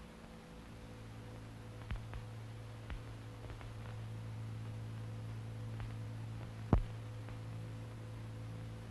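Low steady hum and hiss of recording noise, with a few faint scattered clicks and one sharper pop about seven seconds in.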